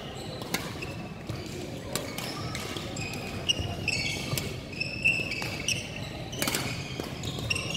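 A doubles rally in a racket sport on an indoor court: sharp racket strikes roughly once a second, mixed with brief high squeaks of shoes on the court floor.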